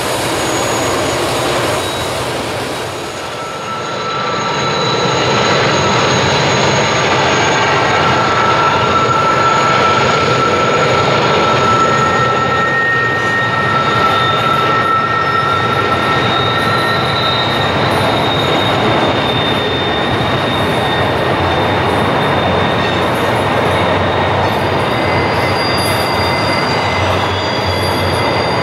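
A double-stack intermodal freight train rolling past with a steady rumble. Its wheels squeal in long, steady high-pitched tones, typical of flange squeal on a tight curve.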